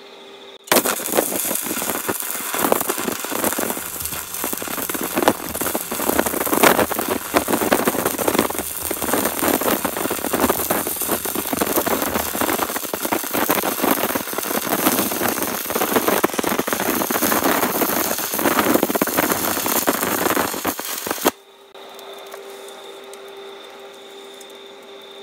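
Stick (arc) welding thin steel with a 1.6 mm rod on an inverter arc welder: the arc strikes about a second in and runs as a continuous, irregular crackle for about twenty seconds, then cuts off suddenly when the rod is pulled away.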